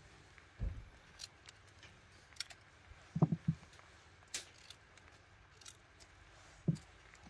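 Vegetables and a kitchen knife being handled on a wooden cutting board: three soft knocks and several light, sharp clicks and scrapes.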